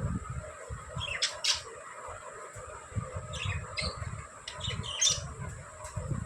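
Pet budgerigars giving short, sharp chirps and squawks in a few quick clusters: about a second in, around three seconds, and again near five seconds. A low rumble runs underneath.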